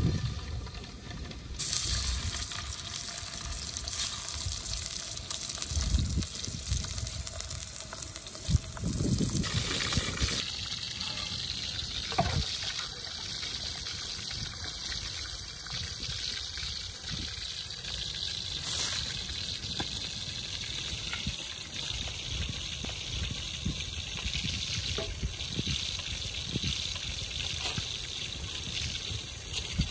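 Slices of pork belly sizzling in hot oil in a wok for the first nine seconds or so. After that, water splashing and trickling as a basin is filled from the river and vegetables are put in it to wash.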